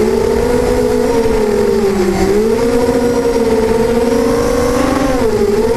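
Beecrazy Daredevil FPV racing quadcopter's motors and propellers whining, heard from on board. The pitch wavers with the throttle, dipping about two seconds in and again near the end, over a rushing noise.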